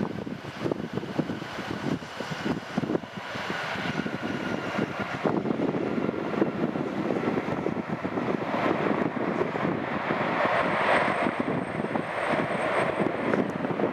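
Jet engines of a Boeing 767-300ER airliner landing: a steady noisy rumble with a faint engine whine, growing somewhat louder and brighter in the second half.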